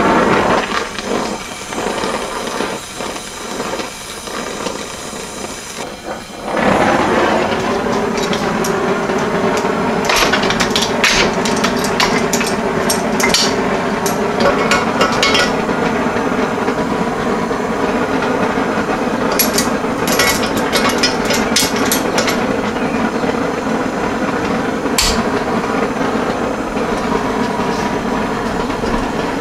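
Handheld gas torch flame hissing steadily as it heats rusted exhaust-manifold studs. It comes up strongly about six and a half seconds in, with scattered metal clinks of locking pliers working the stud and one sharp knock near the end.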